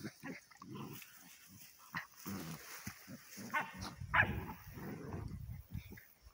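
A yellow Labrador and a black Borador puppy play-fighting, growling and grunting in short irregular bursts, with a couple of higher, sharper yelps about three and a half to four seconds in.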